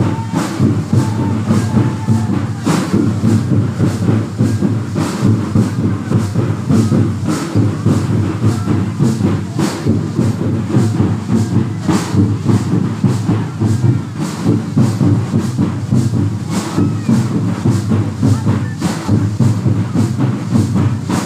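Traditional Santali dance drumming: loud, fast, driving rhythm of folk drums, with sharp accented strokes cutting through a heavy low thumping pulse.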